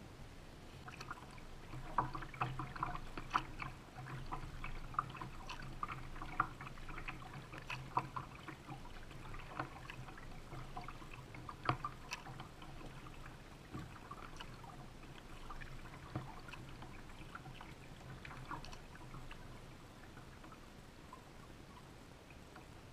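Water splashing and dripping against a kayak's hull: many small, irregular drips and splashes over a low steady hum, growing fewer and quieter near the end.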